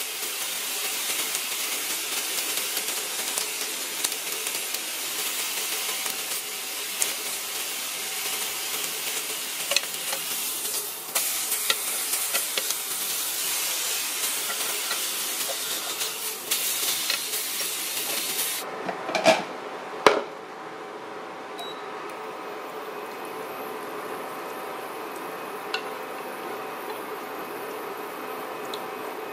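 T-bone steak sizzling on a cast-iron grill pan, with metal tongs clicking against the pan as the steak is turned. About two thirds of the way through the sizzling cuts off after two sharp knocks, and a whisk stirs a sauce in a saucepan.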